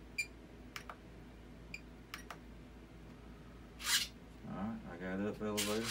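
A few faint, short clicks, then a brief rustle about four seconds in, then a low, wordless hum of a man's voice near the end.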